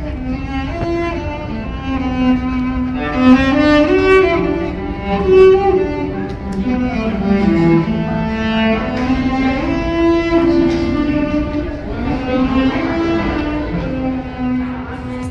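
Solo cello bowed by a street musician, playing a slow melody of long held notes over a low steady rumble of background noise.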